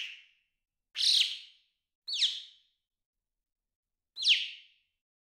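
Four short bird calls, each a quick falling whistle, spaced a second or two apart.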